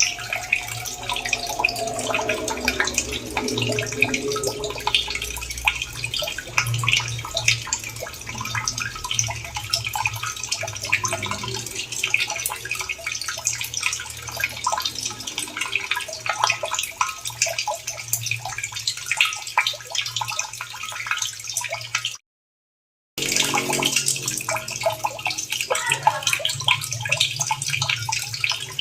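Running water splashing and trickling in a dense, steady patter of small splashes. It cuts out to silence for about a second some twenty-two seconds in, then resumes.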